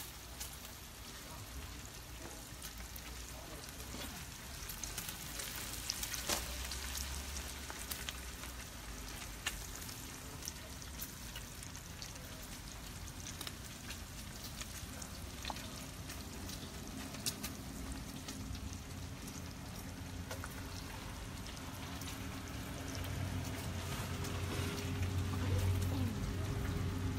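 Thick-cut chopped bacon frying in its own grease: a steady sizzle with scattered crackles and pops.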